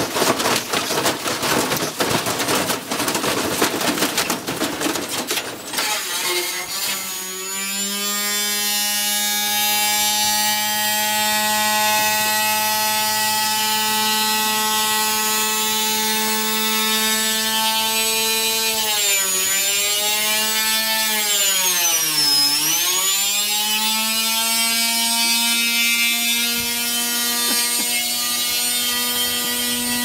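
Stripped front-loading washing machine being run to destruction with its universal brush motor fed from a variac at up to 300 V. For about six seconds the spinning drum and torn sheet-metal cabinet clatter and bang violently, then the motor runs on alone with a steady high whine whose pitch sags and recovers twice, the second time deeper.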